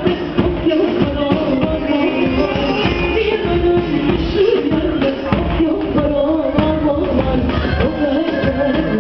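Amplified wedding dance music for a hand-held line dance (halay): a singer over a band with a steady beat, played through loudspeakers.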